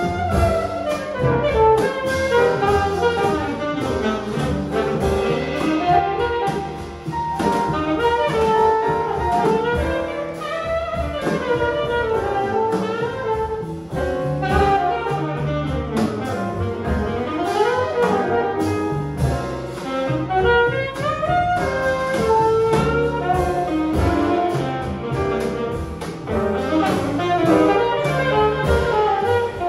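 Live jazz saxophone solo, the saxophone improvising a flowing melodic line over piano, double bass and drums.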